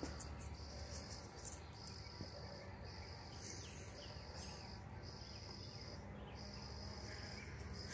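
Faint chirping of crickets, a high, pulsing trill that runs in stretches broken by short pauses, over a low background rumble.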